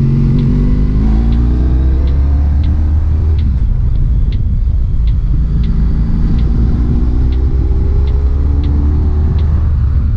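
Honda ST1300 Pan European's V4 engine running through a Delkevic aftermarket exhaust, heard from the rider's seat. Its pitch rises under acceleration twice, easing off in between, over a heavy low rumble.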